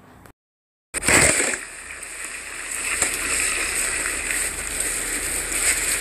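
Storm wind rushing as a steady loud hiss on a phone microphone during a snowstorm, starting suddenly after a half-second dropout near the start.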